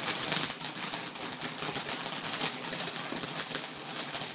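A small sparkling firework crackling and fizzing, a steady hiss full of rapid, irregular crackles.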